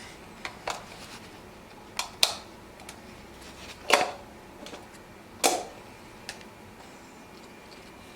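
Plastic magnetic building tiles clacking and snapping together as they are handled: several sharp, separate clicks at irregular intervals, the loudest two past the middle.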